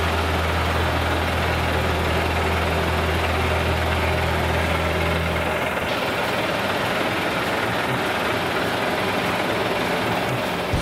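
UD Trucks Quon tractor head's diesel engine idling, a steady low drone. About halfway through the deepest hum drops away and the running sound turns rougher.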